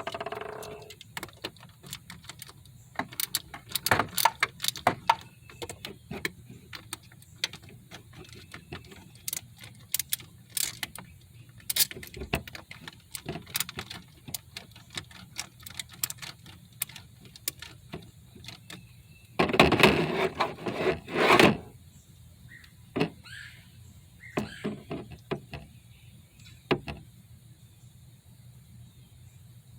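Hand tools working on fasteners: a 3/8 ratchet and socket with pliers, giving scattered clicks and ticks. Two louder bursts of metal clatter come about twenty seconds in.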